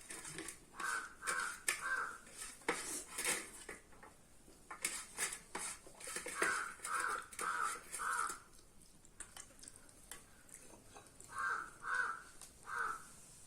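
A crow cawing in three runs of three or four caws each, with short clicks and scrapes of eating from a plate underneath.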